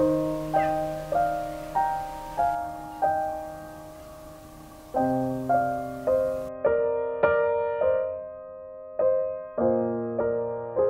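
Slow, gentle piano music: single notes struck about two a second, each ringing and fading, with a short pause partway through.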